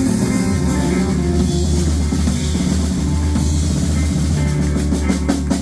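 Live rock band playing, with the drum kit prominent over bass and guitar, and sharper drum hits near the end.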